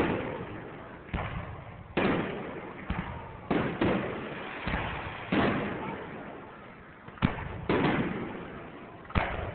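Aerial firework shells bursting overhead: about ten bangs at uneven spacing, each trailing off in an echo over about a second.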